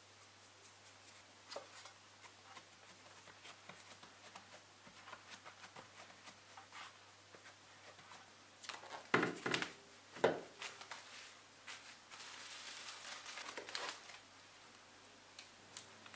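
Quiet hand-handling of a metal baking pan and dough: light ticks and taps, two louder knocks about nine and ten seconds in, then a couple of seconds of crinkling.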